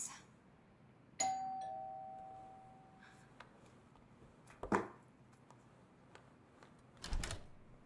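A two-note ding-dong doorbell chime about a second in, a higher note then a lower one, fading away over about two seconds. About halfway a thud follows, and near the end a short clatter as the front door is opened.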